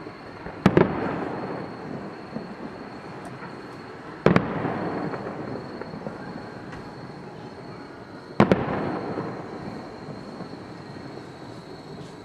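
Aerial firework shells bursting, three loud bangs about four seconds apart, each followed by a long echo that fades over a couple of seconds.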